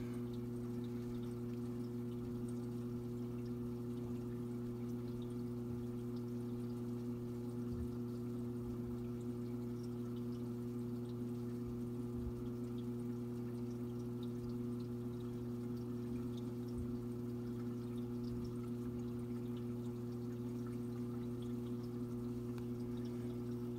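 Saltwater aquarium sump running: water pouring in over a steady hum of several tones from its pump.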